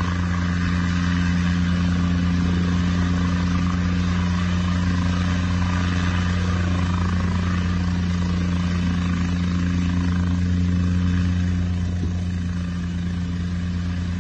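Small light helicopter hovering low and setting down, a steady rotor thrum with engine and turbine noise above it; it gets a little quieter near the end.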